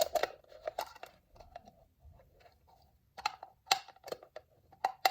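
Irregular sharp clicks and taps of hard plastic as a ball-shaped plastic puzzle container is handled and opened. The clicks bunch up in the first second, thin out about two to three seconds in, then pick up again.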